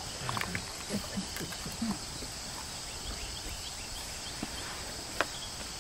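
A steady, high-pitched chorus of insects, with a single sharp click about five seconds in.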